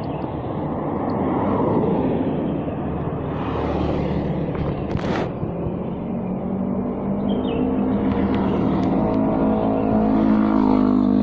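Motorcycle engine idling with a steady hum that settles in about halfway through, after a rougher rumble; a sharp knock about five seconds in.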